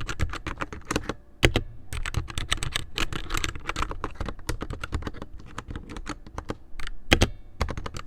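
Typing on a TMKB 60 mechanical keyboard: fast, uneven key clicks with a couple of brief pauses. This is a key sound test.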